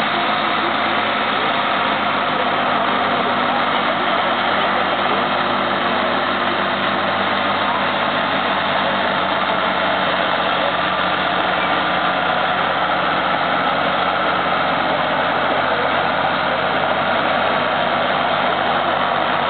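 Ford 7810 tractor's six-cylinder diesel engine running steadily and loudly under load as it drags a heavy pulling sled, with no change in pitch.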